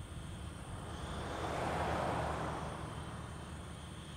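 Outdoor ambience with faint steady insect chirring, as a vehicle passes: its rushing noise swells about a second in and fades away over the next two seconds.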